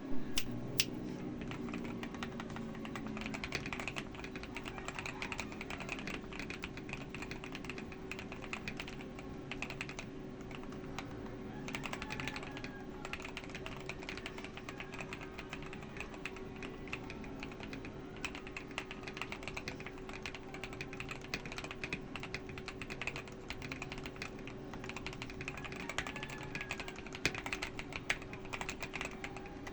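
Continuous typing on a Redragon Fizz K617 mechanical keyboard with hand-lubed Akko Rose Red linear switches, PE foam, tape mod and XDA PBT keycaps: a fast, steady stream of key clacks. A steady low hum runs underneath.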